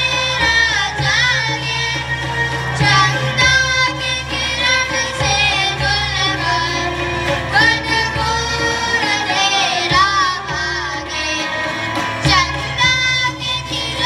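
A group of children singing a melody into microphones over live accompaniment of keyboard, acoustic guitar and tabla; the voices waver with vibrato over steady low held keyboard notes.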